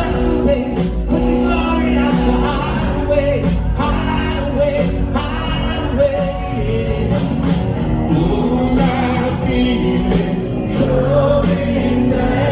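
Rock band playing live in an arena, with a sung vocal line over sustained guitar chords, bass and drums.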